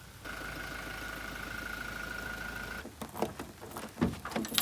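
Car engine idling with a steady hum and a thin whine, cut off abruptly nearly three seconds in, followed by a few knocks and clatters.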